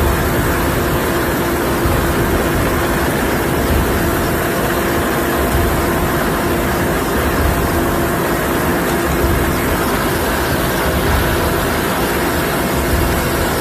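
Helicopter engine and rotor noise heard from the open cabin door while it hovers: a loud, steady drone.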